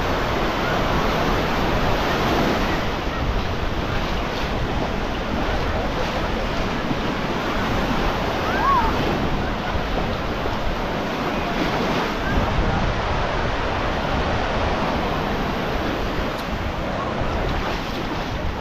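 Baltic Sea surf washing steadily onto the beach, with wind buffeting the microphone. A brief, faint high call is heard about nine seconds in.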